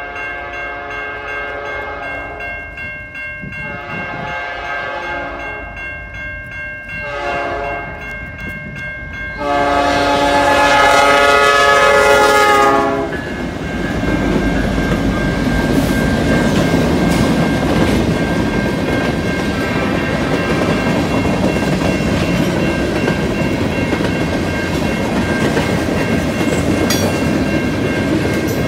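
Freight locomotive air horn sounding several blasts for a grade crossing, the last one long and loudest, over the steady ringing of the crossing bell. About 13 seconds in, the horn stops and the locomotives and freight cars roll past, their wheels clattering steadily over the rails.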